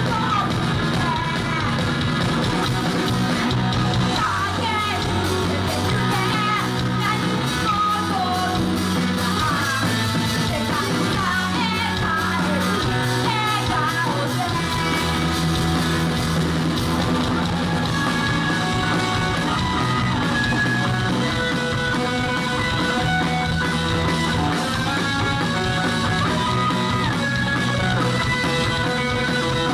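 Rock band playing live: a singer over electric guitars and bass.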